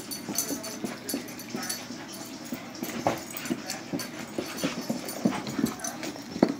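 Two German Shepherd puppies play-fighting: scuffling and many short knocks of paws and bodies, mixed with the puppies' small vocal noises. The sharpest knock comes just before the end.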